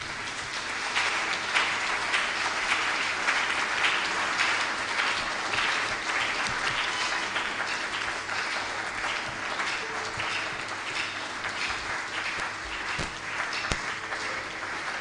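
Audience applauding: many hands clapping, strongest in the first few seconds and then holding steady.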